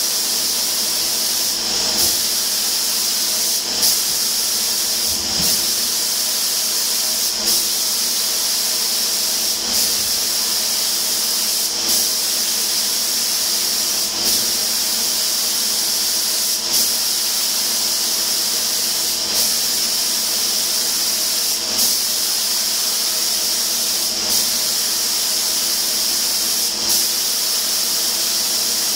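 Compressed-air spray gun with a suction-feed cup hissing steadily as it sprays paint, with short breaks about every two to two and a half seconds.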